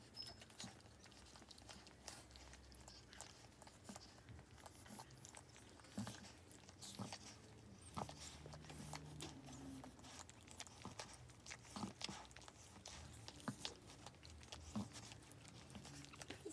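Faint, irregular wet licking and chewing clicks from a Boston Terrier mother cleaning a newborn puppy during whelping.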